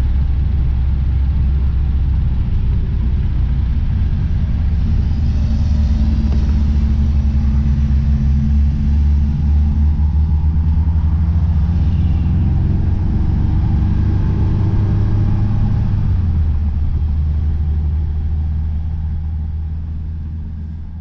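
BMW 2002's M10 four-cylinder engine heard from inside the cabin while driving. The engine note steps up and down in pitch several times, and the sound fades out near the end.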